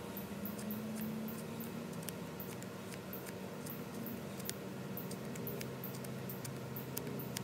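Knife blade cutting and shaving thin curls from a resinous pine fatwood root: a string of short, crisp cutting clicks and scrapes at an uneven pace, over a faint steady low hum.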